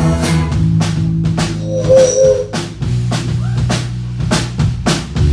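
Live band playing an instrumental stretch of a rock/blues song: a drum kit beat, about two hits a second, over sustained bass notes, with one short bending note about two seconds in.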